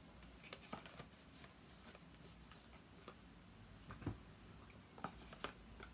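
Near silence with a few faint, scattered clicks and taps, the small handling sounds of CD discs and their cardboard packaging being put away, the clearest about four seconds in.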